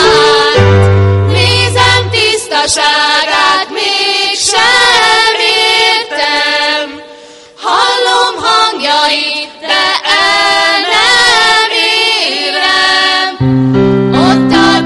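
A small group of young women singing a song together into microphones, with low sustained accompaniment notes under the voices near the start and again near the end. The singing breaks off briefly about halfway before going on.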